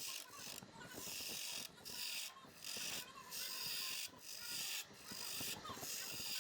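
Turning tool scraping and shaving wood on a spinning lathe workpiece, in repeated hissing strokes a little over one a second.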